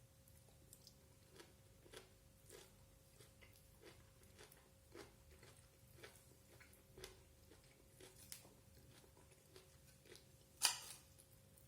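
A person eating a meal of rice and vegetables: faint, irregular chewing and small clicking mouth and eating sounds, with one louder sharp click near the end.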